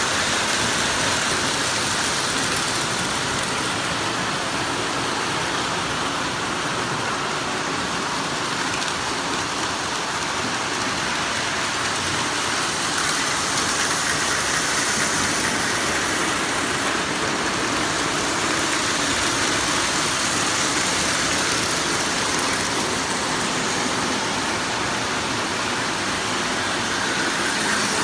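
Several Lionel O-gauge toy trains running on three-rail metal track: a steady rumble of wheels and electric motors.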